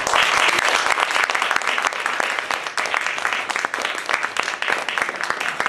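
Audience applauding: many hands clapping, loudest at the start and easing off slowly.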